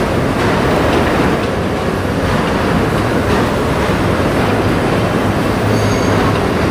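R68 subway cars of a D train rolling slowly through curved switches: a steady rumble of steel wheels on rail with clicks over the joints, and a faint, brief high wheel squeal near the end.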